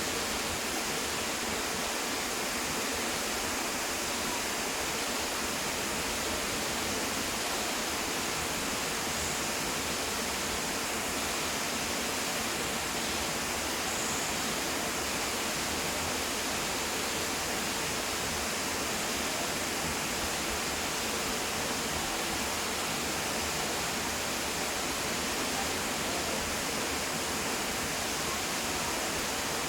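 Waterfall pouring and crashing, a steady, even rush of water.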